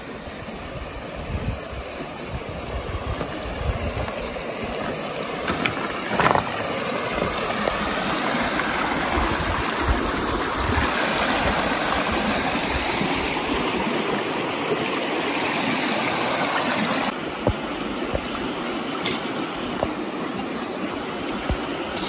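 Shallow bush stream rushing over rocks, a steady rush of water that grows louder over the first ten seconds and drops abruptly about seventeen seconds in.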